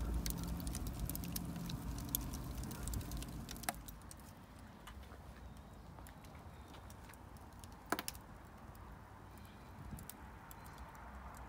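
Wood fire crackling inside a brick wood-fired oven: rapid, irregular pops and snaps over a low rumble. After about four seconds it drops away to faint background with a few scattered clicks, one sharper than the rest near the middle.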